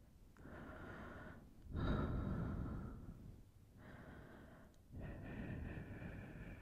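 Close-miked breaths and blowing into the microphone: a few separate slow breaths with short pauses between them, the loudest and deepest about two seconds in.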